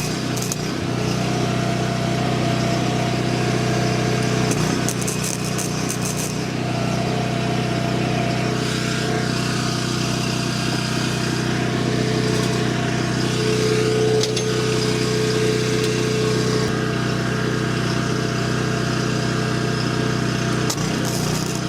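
Portable generator engine running steadily at constant speed.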